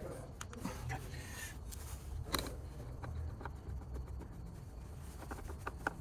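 Hand screwdriver turning small machine-thread screws into a yoke steering wheel's frame: faint scattered clicks and scrapes, with two sharper clicks, one a little over two seconds in and one near the end, over a low steady hum.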